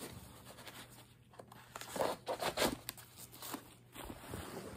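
Rustling and scraping of a nylon backpack and its straps as a machete is slid back into its sheath on the outside of the bag, with a cluster of louder scrapes about two seconds in.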